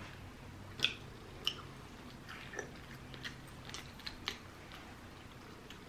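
Close-miked chewing of rotisserie chicken: scattered wet mouth smacks and clicks, with hands pulling meat off the chicken.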